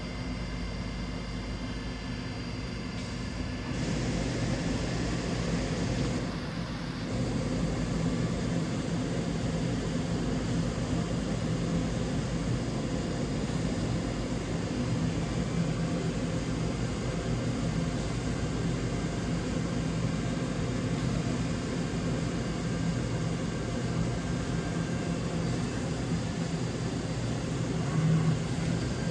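DVF 5000 five-axis CNC machining centre running, a steady mechanical hum with a low tone. It steps up in loudness about four seconds in, dips briefly a few seconds later, then holds steady, with a short louder swell near the end.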